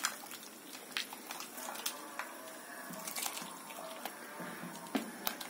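Chicken and corn soup, thickened with corn starch, simmering in a pot while it is stirred with a metal ladle, which clinks faintly against the pot a few times.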